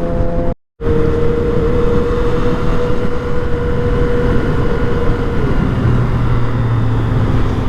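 Yamaha FZ-09's inline-three engine running at steady speed under way, with road and wind noise. The audio cuts out completely for a moment just after the start, and about five and a half seconds in the engine note drops lower.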